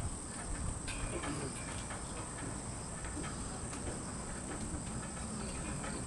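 Outdoor ambience: a steady high-pitched insect drone over a low rumble, with a few faint clicks.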